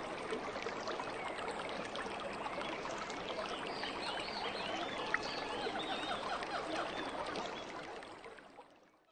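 Nature ambience: a steady rush like running water, with many short animal chirps over it, fading out near the end.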